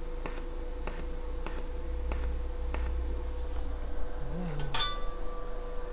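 ESAB Fabricator ET 410iP TIG welder in spot mode, firing short arc pulses at up to 400 amps: a sharp crackling click at each high-frequency arc start, about every half second, over a steady electrical hum. Near the end comes one louder crack followed by a thin whine lasting about a second.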